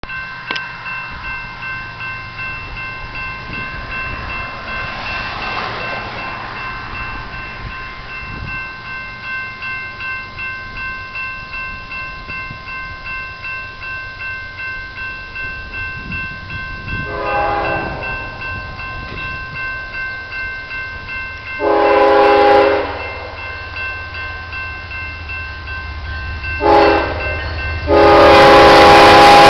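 Norfolk Southern GE freight locomotive's air horn sounding the grade-crossing signal as the train approaches: two long blasts, a short one, then a loud long one held near the end, over a rising low rumble of the engines. Before the horn, a steady bell-like ringing with a repeating beat, typical of a grade-crossing bell.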